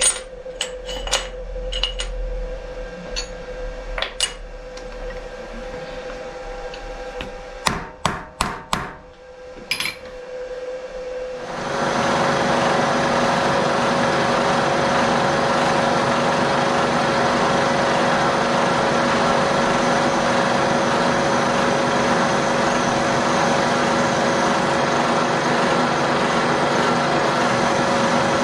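Sharp metallic knocks, scattered and then a quick run of about four, from a hammer tapping a steel block down in a milling-machine vise. About 11 seconds in, the turret milling machine's spindle starts and runs steadily with a constant whine.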